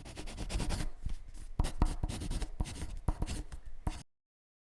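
Handling noise: scratchy rubbing and rustling against the microphone, with a few sharp knocks, that starts and cuts off abruptly.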